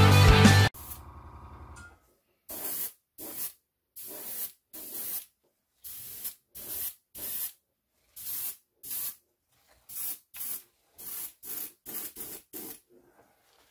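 Airbrush spraying paint in short bursts, a run of quick hisses about half a second apart with brief gaps between, as coats are laid over a model. Rock music plays at the very start and cuts off abruptly.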